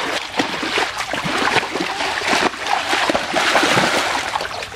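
Muddy pond water splashing and sloshing continuously and irregularly as children wade through it and drag a mesh fishing net.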